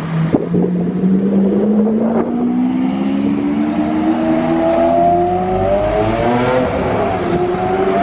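Lamborghini Aventador SV Roadster's V12 engine accelerating, its note rising steadily in pitch for about six seconds, then easing off near the end.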